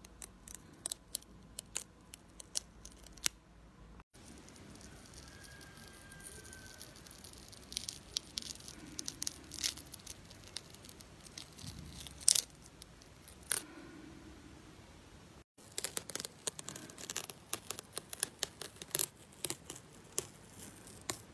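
Dried green tea peel-off mask crackling and tearing in quick, irregular clicks as it is pulled away from the skin of the nose.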